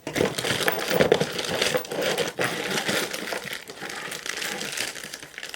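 Packaging crinkling and rustling as it is handled and opened, a busy run of small crackles.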